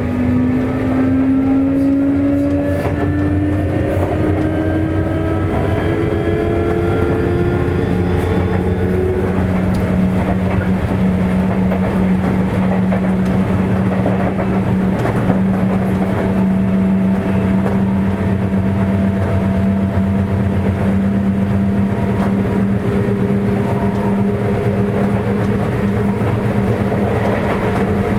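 Sotetsu 8000 series train heard from inside a motor car: the Hitachi IGBT-VVVF inverter and traction motors whine in several tones rising together as the train accelerates. After about nine seconds the rise stops and the train runs on at steady speed with a steady low hum over continuous running rumble.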